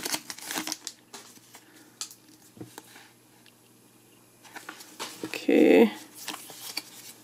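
Foil booster-pack wrapper crinkling as the trading cards are slid out, then quiet handling clicks and rustles as the card stack is squared up. About halfway through, the person makes a short vocal sound.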